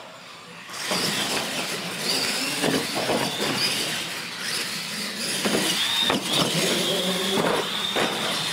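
Radio-controlled monster trucks racing on a concrete floor, starting about a second in: motors whining and tyres scrubbing, with several sharp knocks as the trucks hit and land off the ramps.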